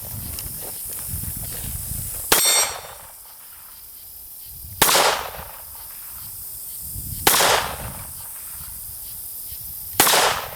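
Pistol fired four times, one shot about every two and a half seconds, the first followed by a brief metallic ring. These are the last rounds in the magazine.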